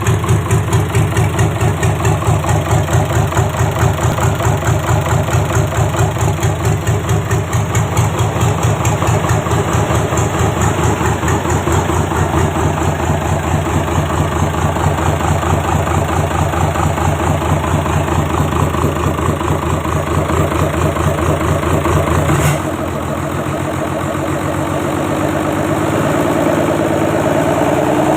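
Mitsubishi 6D16 inline-six diesel engine running on a test, with an even, pulsing idle. A bit over 20 seconds in, the deep rumble drops away abruptly and a higher engine note takes over, climbing slowly in pitch near the end as the engine speeds up.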